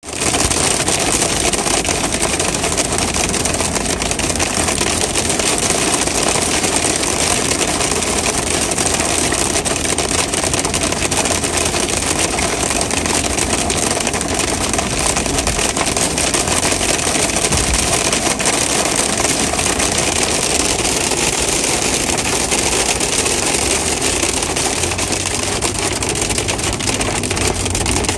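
Hail pelting down hard: a dense, steady clatter of countless stones striking, with no let-up.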